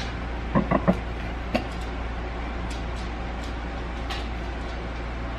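Kitchen utensil knocks and clicks on a dish: three quick knocks about half a second to a second in, another shortly after, then a few faint ticks, over a steady low hum.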